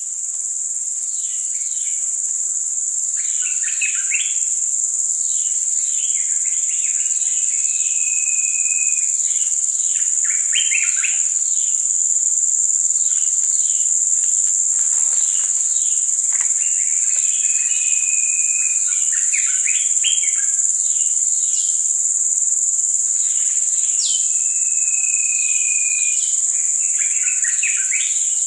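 Steady, high-pitched drone of forest insects throughout, with small birds calling over it in repeated clusters of quick falling chirps and a few short level whistles.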